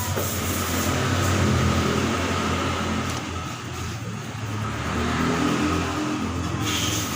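A motor vehicle engine running, a steady low hum that swells and eases.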